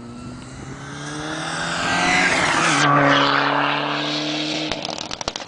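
Rally car engine at high revs approaching and passing close by at speed, growing louder to a peak about two to three seconds in, with its pitch dropping sharply as it goes past. The lower engine note then cuts off suddenly near the end and gives way to a rapid crackling.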